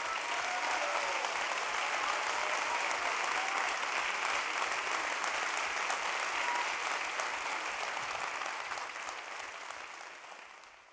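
Audience applauding, steady at first and then fading away over the last few seconds.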